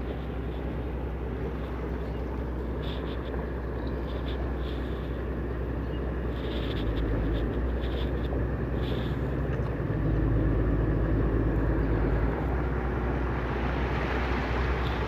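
River express boat's engine droning steadily as the boat approaches, getting gradually louder. A few short high chirps come in the first half.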